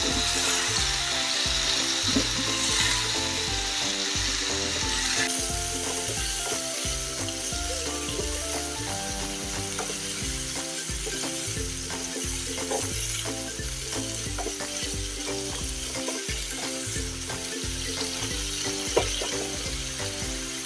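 Broccoli, cabbage, carrot and minced chicken sizzling in a frying pan as they are stir-fried with a wooden spatula, with a few light scrapes of the spatula. The sizzle eases a little about five seconds in.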